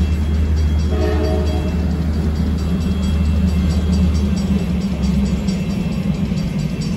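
CSX passenger train cars rolling past at low speed, a steady low rumble with faint wheel clicks, which eases about four seconds in. A brief chord of steady tones sounds about a second in.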